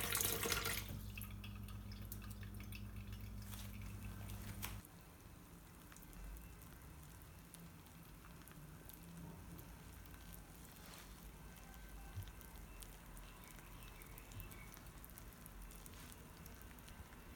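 A kitchen tap running water shuts off about a second in, leaving a low steady hum that cuts off suddenly near five seconds. After that there are only faint drips and small clicks.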